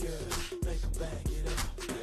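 Hip hop music with a heavy bass beat and rapped vocals.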